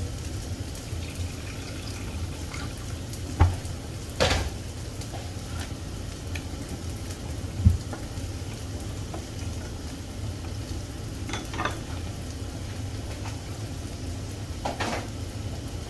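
Fish in sauce sizzling steadily in a frying pan, with a few sharp knocks of a utensil against the pan.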